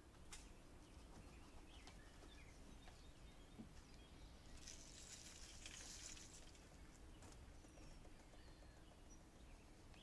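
Faint outdoor ambience with scattered faint bird chirps. About halfway through comes a soft patter lasting about a second and a half as peanuts are poured from a container onto a patio table.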